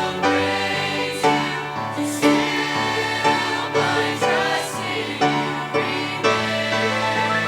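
A choir singing a gospel worship song in harmony over instrumental accompaniment, with a beat struck about once a second.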